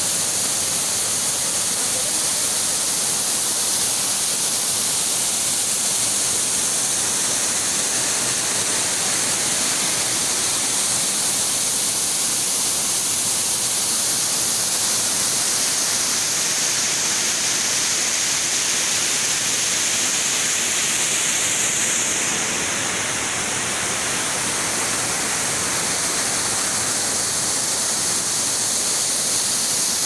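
Water of Chulia Falls on the Chambal River cascading down through narrow rock channels: a loud, steady rush of falling water, dipping slightly about two-thirds of the way in.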